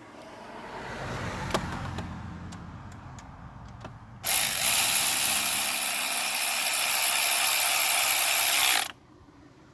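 A ratchet driving one of the long water pump bolts with a socket: a few light clicks, then about four and a half seconds of steady ratcheting that stops abruptly near the end.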